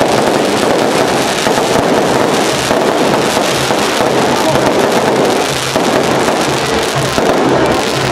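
Aerial fireworks bursting overhead in quick succession, a continuous dense crackle of many small bangs with no pause.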